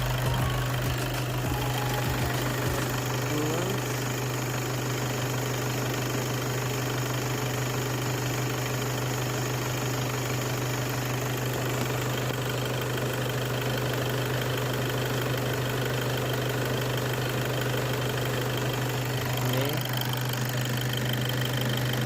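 VW EA288 2.0 TDI four-cylinder turbodiesel running steadily at warm operating temperature, with coolant at about 90 degrees, while the coolant system is circulated and bled.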